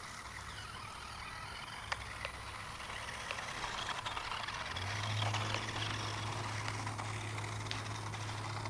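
Toy RC monster truck being driven over wet, muddy ground, with faint hiss and small scattered clicks. A steady low hum sets in about halfway through.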